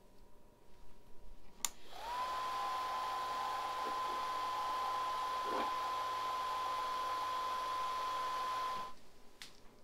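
Chugger brewing pump with a Blichmann Riptide upgrade head, switched on with a click about two seconds in. Its motor whine rises and settles into a steady high tone over a hiss as it runs dead-headed against a closed valve for a head-pressure reading. It shuts off after about seven seconds.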